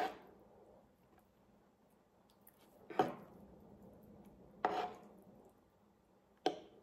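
Metal spoon and fork clinking and scraping against each other and a wooden tray as food is scooped up: four short clatters a second or two apart.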